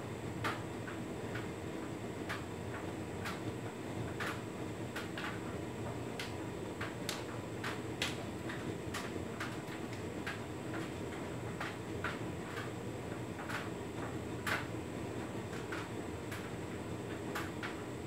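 Hotpoint Ultima S Line tumble dryer running a cottons cycle: a steady hum from the turning drum and fan, with irregular light clicks and taps, two or three a second, as the load tumbles in the drum.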